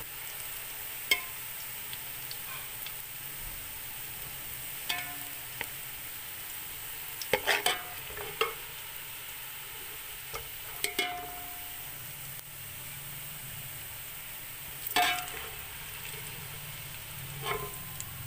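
Sliced onions frying in hot ghee in a metal pot, a steady sizzle, while a slotted metal skimmer scrapes and knocks against the pot about seven times, some strokes ringing briefly, as the browned onions are lifted out.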